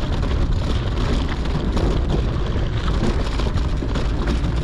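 Steady wind rumble on the camera's microphone, mixed with the rolling tyre noise of a mountain bike ridden along a dirt road.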